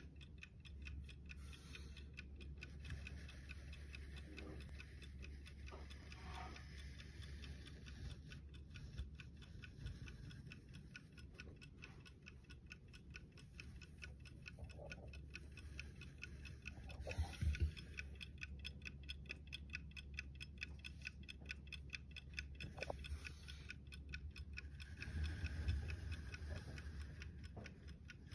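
1930s German J. Oswald French bulldog clock's mechanical movement ticking in rapid, even beats: the clock is running. A few louder knocks come as the wooden case is handled, about halfway through and again near the end.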